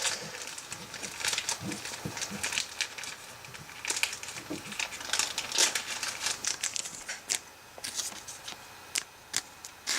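Crinkling and rustling of trading-card packaging and cards being handled, with many irregular sharp crackles and clicks.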